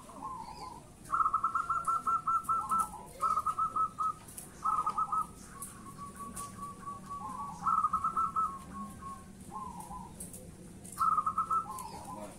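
Caged zebra doves (perkutut) singing in their contest song: overlapping phrases of quick, evenly spaced cooing notes from several birds. The loudest phrases come about a second in, near three, five, eight and eleven seconds.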